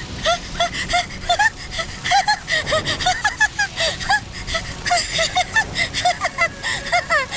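A high-pitched voice laughing in a long run of quick, short giggles, several a second, each note rising and falling: a manic, unhinged laugh.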